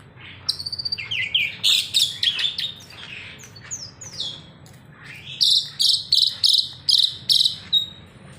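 A songbird singing: a quick, varied run of chirps and whistled notes, then a string of about seven loud, even whistled notes, roughly three a second, near the end.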